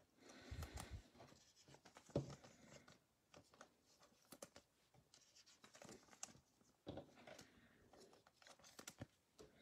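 Faint, intermittent rustling and light tapping of trading cards being handled and slid through the hands, with a sharper click about two seconds in.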